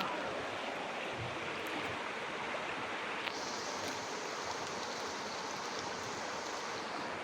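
Steady rush of flowing water from a stream. A high, even hiss joins it about three seconds in and stops shortly before the end.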